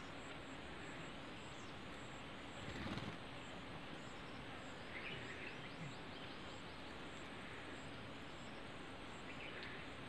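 Faint bird chirps, a few short calls about five seconds in and again near the end, over a steady outdoor background hiss, with one brief louder noise about three seconds in.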